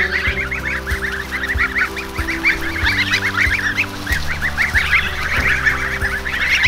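A flock of young goslings peeping continuously, many short high calls overlapping.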